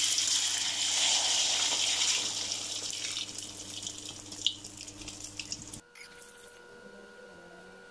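Beaten egg poured into hot oil in a wok, sizzling hard with scattered crackling pops, the sizzle fading over several seconds as the egg sets. About six seconds in it cuts off abruptly to a faint steady hum.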